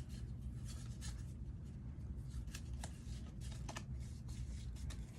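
Pokémon trading cards being handled, with light scattered rustles and small clicks over a faint low hum.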